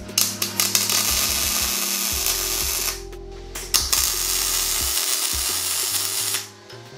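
Welding arc crackling steadily in two runs of about three seconds each, with a short stop near the middle while steel shock mounts are welded onto a go-kart frame. Background music plays underneath.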